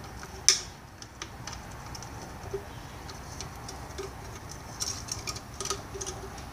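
Light clicks and taps of plastic parts being handled at the open filler hole of a Ryobi trimmer's plastic fuel tank. One sharp click comes about half a second in, and a cluster of lighter clicks comes near the end.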